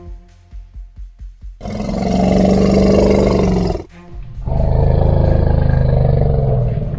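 Two long, loud animal roar sound effects, each lasting about two seconds, the first starting about a second and a half in and the second about four and a half seconds in. Background music with a steady beat plays underneath.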